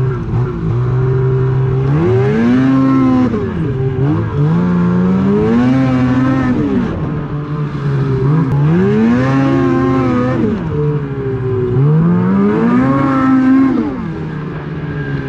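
Snowmobile engine heard from on the sled, revving up and easing back off four times in a row, its pitch climbing and falling with each burst of throttle.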